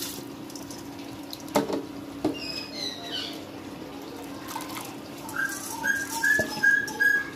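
Rice and water being handled in a metal cooking pot, with two sharp knocks against the pot and a steady low hum. Near the end comes a run of about five short, high whistle-like notes, the loudest sound.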